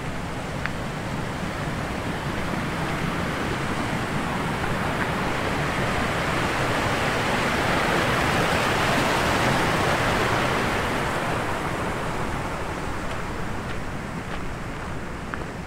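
Mountain stream rushing over rocks in small cascades, a steady hiss of water that swells loudest about halfway through and then fades.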